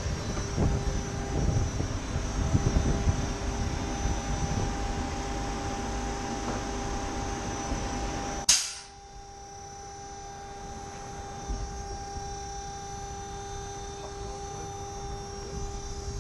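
An all-electric Peterbilt 579 truck running with a steady whine from its electric pumps, under a rumble of wind and handling noise. About halfway through there is one sharp, loud bang, after which the rumble drops and the whine carries on.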